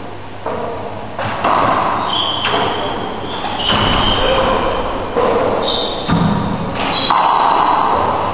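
A handball rally in a walled indoor court: the hard ball smacks off hands and walls in about eight sharp, echoing hits, half a second to a second apart. Short high squeaks of shoes on the wooden floor come in between.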